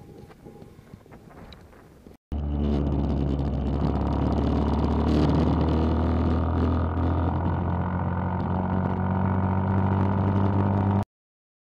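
A quieter first two seconds, then a 125cc mini bike's single-cylinder four-stroke engine running loud and steady while riding, heard from on the bike. It cuts off suddenly near the end.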